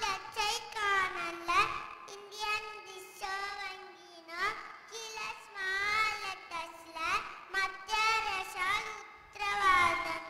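A young girl's voice through a stage microphone, in a sing-song delivery.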